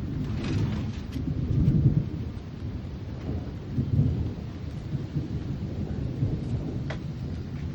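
Thunder rumbling from a summer thunderstorm, a low rolling rumble that swells about two seconds in and again around four seconds, over the steady hiss of rain.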